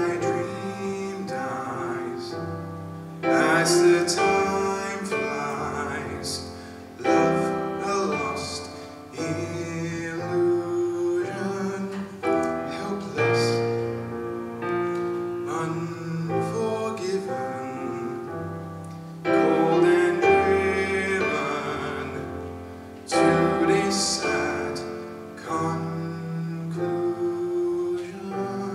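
A man's solo voice singing a musical-theatre ballad with piano accompaniment, phrase by phrase, each swelling and then fading.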